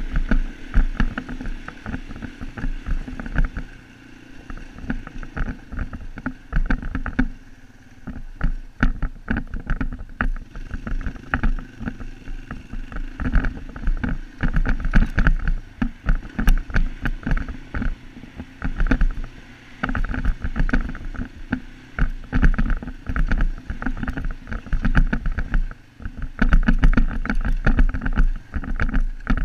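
Off-road vehicle's engine running under way on a rough dirt trail, buried under heavy, gusty wind buffeting on the helmet camera's microphone, with many quick knocks and jolts.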